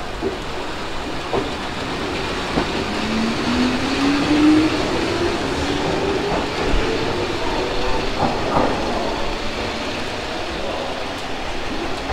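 Keihan 8000-series electric train pulling out and accelerating. Its traction motors give a whine that rises steadily in pitch, with wheel clacks over the rail joints.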